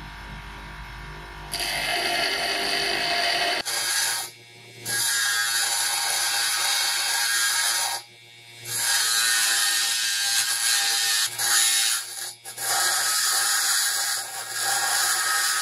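Bench grinder running with a steady hum while a small brass piece is pressed against its grinding wheel, a harsh grinding noise that stops briefly twice as the piece is lifted off and set back to the wheel.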